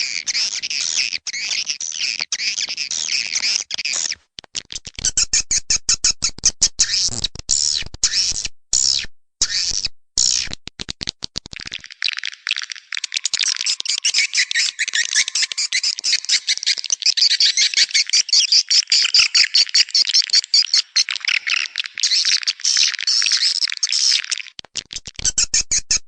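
Swiftlets twittering: a dense, fast chatter of high chirps and trills, broken by a few abrupt short silences about four and nine seconds in.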